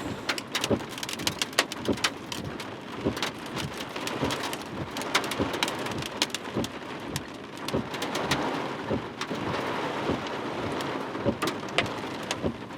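Rain falling on a truck's roof and windshield, a steady patter with many sharp separate ticks of individual impacts.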